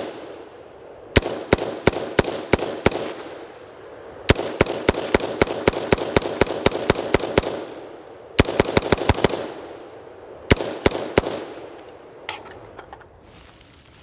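BCM AR-15 in 5.56 firing rapid semi-automatic strings of shots, about four shots a second, each crack trailed by an echo. There are four strings with short pauses between them, the longest about three seconds, and a few scattered sharp sounds near the end.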